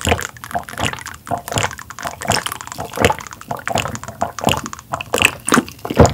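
Close-miked wet eating sounds of soft squid innards in broth being chewed, with squelches and smacks in quick, irregular succession.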